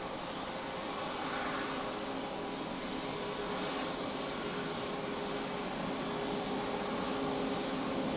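CFM LEAP-1B jet engines of a Boeing 737 MAX 8 on its landing rollout: a steady rushing noise with a faint hum, slowly growing a little louder.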